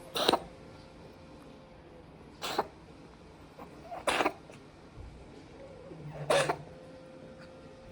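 A Munchkin × American Curl mix cat coughing: four short hacks about two seconds apart, part of a persistent cough.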